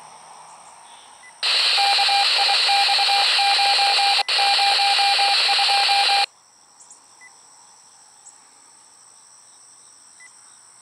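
Scanner radio on a railroad channel opening to a burst of static hiss with a broken beeping tone through it. The burst starts about a second and a half in, drops out for an instant near the middle, and cuts off suddenly after about five seconds.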